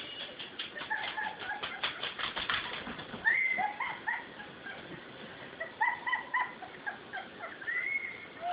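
Children's high-pitched squeals and shrieks, short rising and falling cries, as two girls wrestle in mud.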